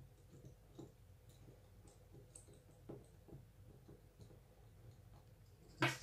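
Faint, scattered small clicks and light taps of hands fitting an NVMe SSD into an opened tablet, with one sharper, louder knock near the end.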